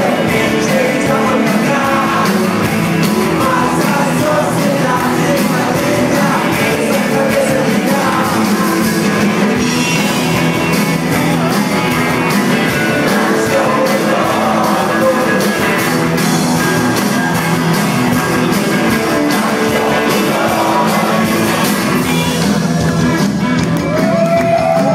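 Live rock band playing loudly with electric guitars and drums, a male voice singing over it, recorded from within the audience.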